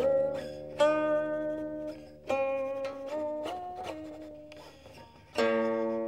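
Solo guqin (seven-string Chinese zither): about three plucked notes, each ringing and fading slowly. In the middle, a held note slides up in pitch and back down as the left hand glides along the string.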